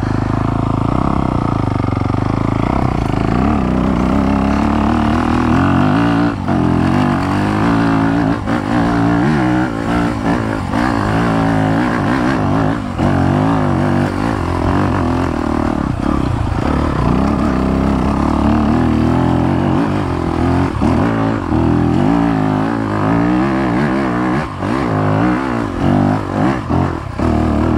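A Yamaha YZ250FX dirt bike's single-cylinder four-stroke engine is running under riding load. Its pitch rises and falls constantly as the throttle is opened and closed.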